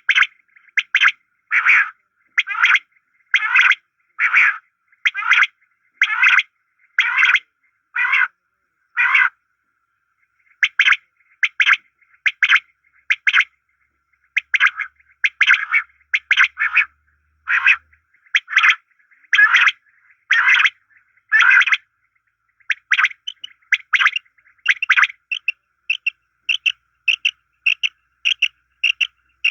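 Quail calls for a pair of quails, a short call repeated about once a second, as played to lure quail. The calls stop briefly about ten seconds in, then come shorter and quicker near the end.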